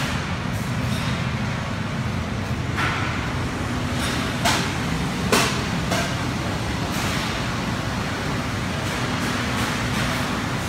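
Steady low machine hum, with sharp clicks about four and a half and five and a half seconds in.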